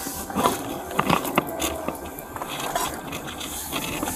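Handling noise of an Axon Body 3 body-worn camera rubbing against the officer's clothing as he moves in a patrol car's driver's seat: a run of scrapes and rustles broken by sharp clicks and knocks.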